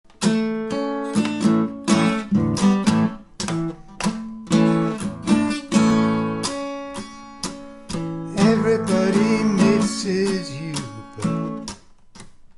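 Acoustic guitar strummed and picked through a run of chords, each stroke with a sharp attack and ringing notes, fading out near the end.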